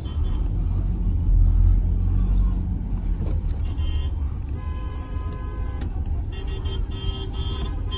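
Car engine and road rumble heard from inside a moving vehicle, with a car horn blaring in long blasts from about halfway through to the end.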